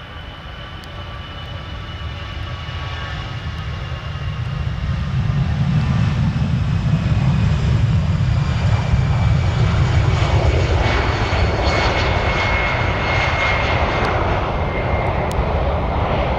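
Airbus A319 twin jet engines at takeoff thrust during the takeoff roll and climb-out. The sound grows steadily louder over the first few seconds, with a whine of several high tones over a deep rumble. From about ten seconds in it turns to a rough crackling as the jet climbs away.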